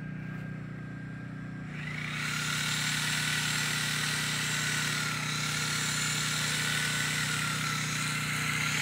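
Small gasoline engines running: a steady low hum, joined about two seconds in by a louder, higher whine that holds steady.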